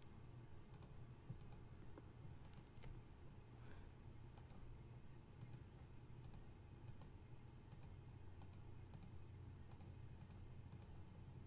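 Faint computer mouse clicks, each a quick double tick of press and release, coming every half second to a second as keys are clicked on an on-screen calculator. A low steady hum runs underneath.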